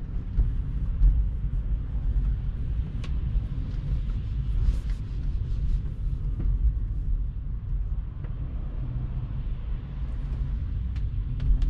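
Low, steady road rumble from a Tesla electric car rolling slowly over wet pavement and easing toward a stop, with a faint tyre hiss and a few faint clicks.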